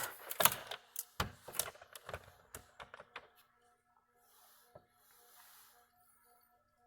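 Small tools and a plastic charger case being handled while a tiny screw is taken out: a run of sharp clicks and taps over the first three seconds, then one more tap near the middle, with faint hiss.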